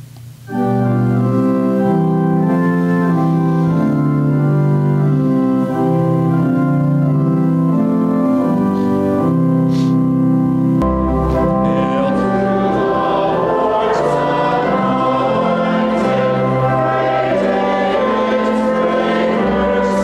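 Church organ playing a hymn tune in sustained chords, starting about half a second in. A deep pedal bass joins about eleven seconds in and the sound grows fuller.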